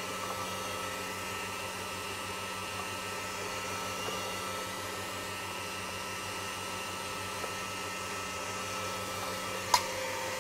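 Steady whirring hum of commercial kitchen machinery, with a single sharp knock near the end.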